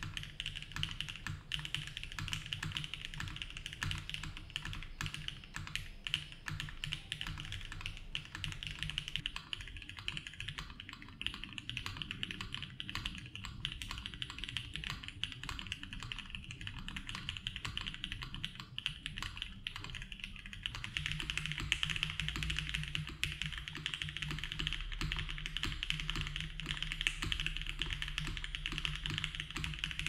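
Continuous fast typing on a Mode Tempo 60% mechanical keyboard fitted with HMX Pearl switches and Lattice Blocks keycaps, a dense stream of keystroke clacks. The board's sound shifts twice, about a third and two thirds of the way through, as the foam inside changes from plate foam to case plus plate foam to plate plus PE foam.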